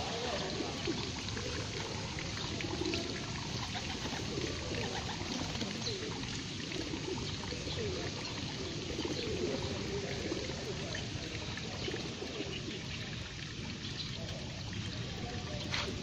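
Water trickling steadily at a pond's edge, with low cooing from a flock of rock pigeons.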